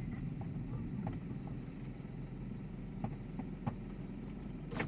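Low, steady cabin hum of a Mitsubishi Delica D:5 rolling slowly over a gravel lot, heard from inside the vehicle. A few faint ticks run through it, and there is one sharp click near the end.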